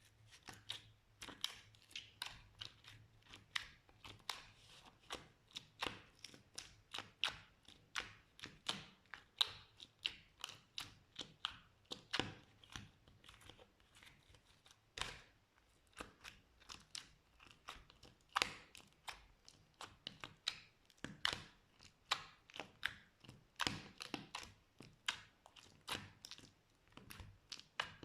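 Slime being squished and pulled by hand, making a steady run of sticky clicks and pops, about two to three a second.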